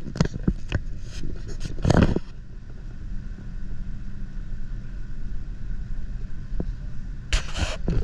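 Train running, heard from inside the carriage: a steady low rumble, with bursts of knocking and clattering in the first two seconds and again near the end.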